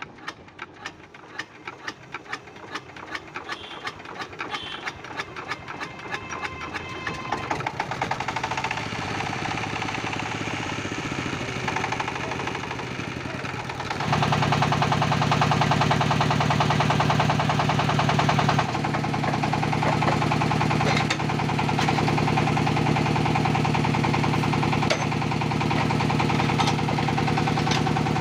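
Small single-cylinder horizontal diesel engine being hand-cranked: its separate beats speed up and grow louder over the first several seconds until it catches and runs with a steady knock. About fourteen seconds in it jumps to a louder, steady running sound.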